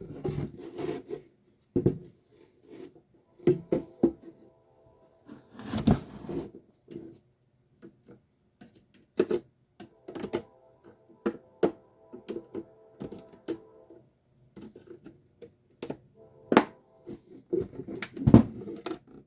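Irregular knocks, thunks and rubbing of parts being handled while a garage door opener power head is taken apart, the loudest knocks about 6 seconds in and twice near the end. Faint music plays underneath.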